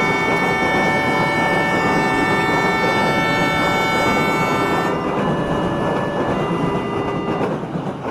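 Train horn sounding one long steady chord for about five seconds over the rumble of a passing train, then a softer horn tone for a couple of seconds more while the rumble goes on.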